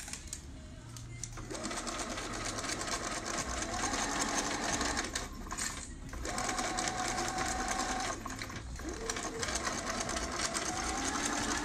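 Bernina activa 130 sewing machine stitching through fabric in spurts: the motor speeds up about a second in and runs with rapid needle strokes, stopping briefly twice, about five and a half and eight seconds in, before running on.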